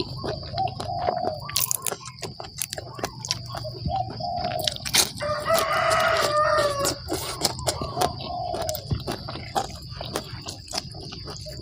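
A rooster crows once, a long call about midway, among repeated short clucking calls from chickens. Crisp crunching clicks of chewing raw yardlong beans run underneath.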